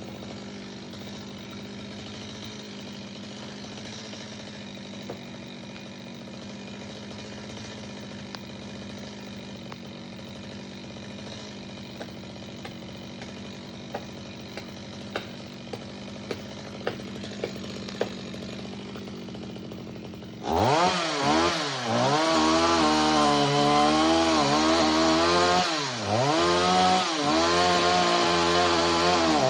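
Stihl two-stroke chainsaw running steadily at idle with occasional clicks, then opened up to full throttle about two-thirds of the way in and cutting into wood, its pitch dipping and recovering again and again as the chain bogs under load.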